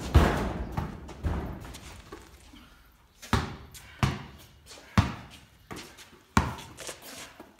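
A basketball bouncing on the floor of a corrugated-iron shed: a few quick bounces dying away early on, then about four slower single bounces, each with a short metallic echo.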